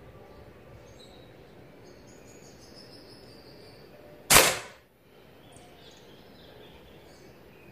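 A single shot from a BSA Stutzen .177 spring-piston air rifle about four seconds in: a sharp crack that dies away within half a second.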